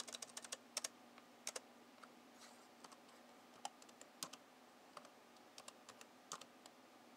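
Computer keyboard being typed on, irregular key taps with a quick run at the start and then slower single strokes, as a web address is typed in.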